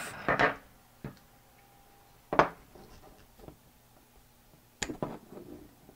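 A few sharp clicks and light clatters of small plastic and metal parts as the turntable is pried off the spindle motor shaft of a CD changer's disc mechanism. The loudest click comes about two and a half seconds in, and another sharp click with a short rattle near the end.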